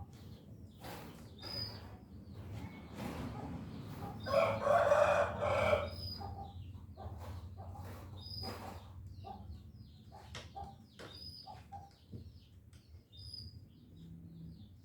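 A rooster crowing once, starting a little past four seconds in, with short bird chirps scattered around it over a low steady hum.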